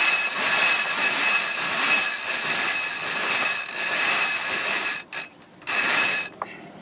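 Yacht's cabin-top winch ratcheting in a fast, ringing buzz as the mainsail halyard is wound in to hoist the reefed mainsail. It runs steadily, stops about five seconds in, then comes back in two short spurts.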